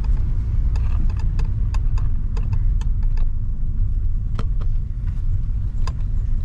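Car driving, with a steady low road rumble and many light ticks and rattles scattered through it.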